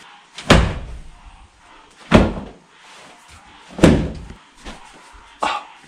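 A cloth being swatted at insects on the walls, making four sharp slaps about every one and a half seconds.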